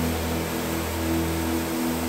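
Background music with sustained low notes, over a steady rushing noise from a Ventrac 4520 compact tractor running a front snow attachment that throws snow.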